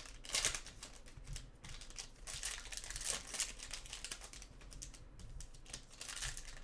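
Trading card packs and cards being handled: irregular crinkling of pack wrappers mixed with light clicks and rustles of card stock being flipped through.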